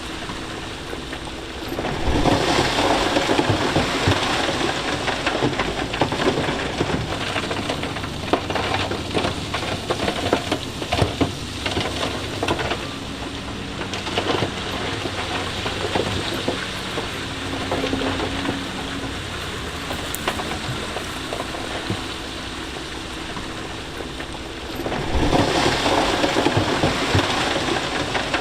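Loose stone and rock clattering and rumbling as heavy earthmoving machinery moves it, over a running diesel engine. The clatter swells about two seconds in and again near the end.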